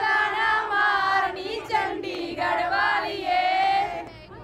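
A young woman singing a Punjabi folk song without accompaniment, drawing out long held notes.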